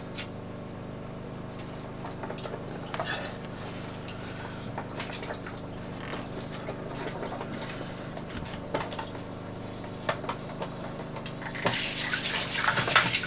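Seawater splashing and gurgling in through a sailboat's open through-hull as the paddlewheel speed-log transducer is pulled and reseated, with a louder rush of water near the end. A steady low hum runs underneath.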